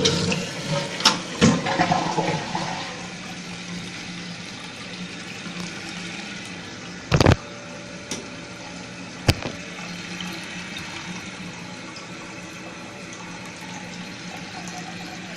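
A 2015 Glacier Bay toilet flushing with a loud rush of water for the first few seconds, then its tank refilling with a steady hiss of running water. A short knock about seven seconds in and a sharp click about two seconds later.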